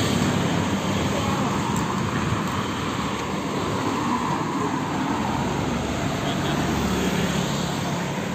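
Steady vehicle engine noise mixed with a rushing, wind-like haze.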